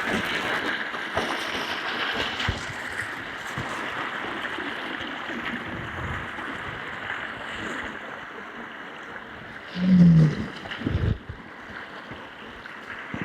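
Steady rush of running water, slowly growing quieter, with a short louder low sound with a falling pitch about ten seconds in.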